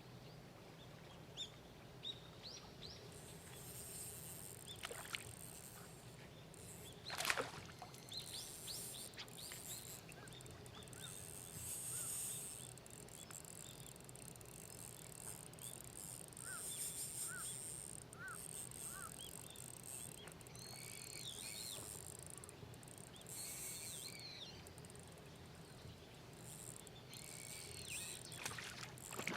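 Outdoor ambience with small birds chirping on and off over a faint hiss, and one sharp click about seven seconds in.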